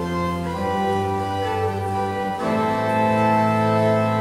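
Church organ playing sustained chords. The chord changes about half a second in and again partway through, where it swells louder.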